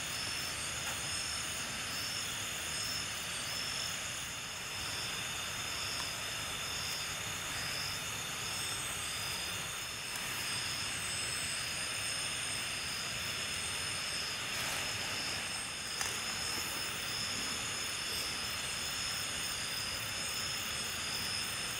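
Night chorus of tropical forest insects: several steady high-pitched trills overlap, and one of them pulses rapidly.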